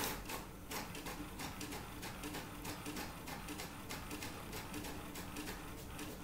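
HP Deskjet 1515 inkjet all-in-one printing a page: a rapid, regular run of mechanical ticks from the paper feed and print-head carriage, with a faint motor hum that comes and goes.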